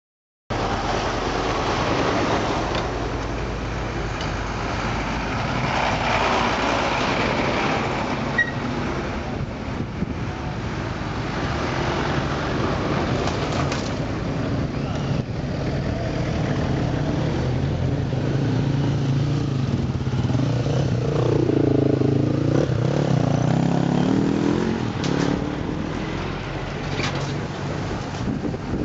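Engines of off-road trucks and a pickup running at low speed: a steady low drone. About two-thirds of the way through, an engine's pitch rises and falls as a Mercedes-Benz 1113 truck comes closer.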